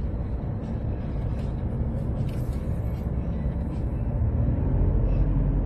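Steady rumble of engine and tyre noise heard from inside a moving car's cabin.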